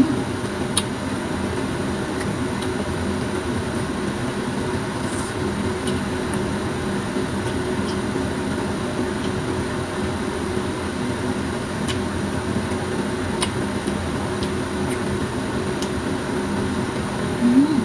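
Steady low mechanical hum of a running motor, such as a fan, with a few faint clicks on top.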